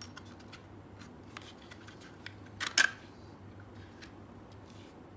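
Small clicks and rubbing of a pistol being handled in its holster, with a sharp double click about two and a half seconds in as the gun snaps in or out.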